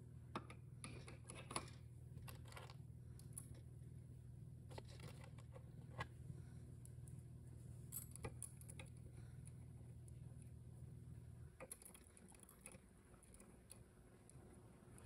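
Faint, scattered clicks and taps of small metal valve parts being handled and fitted by hand into an automatic-transmission valve body, over a low steady hum that stops about two-thirds of the way through.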